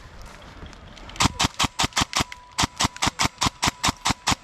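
Airsoft rifle firing a rapid string of shots, about seven a second, starting about a second in. The string breaks briefly, then a second, longer string follows.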